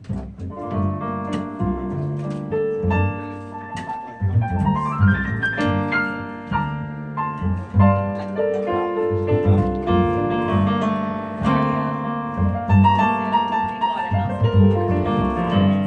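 Instrumental jazz intro of piano and upright bass: a Yamaha stage keyboard with a piano sound plays chords and runs over plucked upright bass notes. It starts abruptly, with a quick rising piano run about five seconds in and a falling run near the end.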